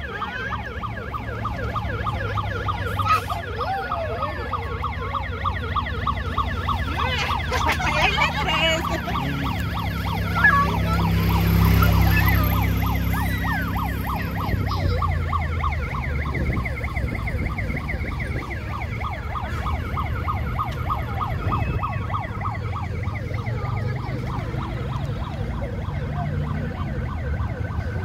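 An emergency vehicle's siren going in a fast, rapidly repeating yelp, over a vehicle's low engine rumble that swells and fades, loudest about twelve seconds in.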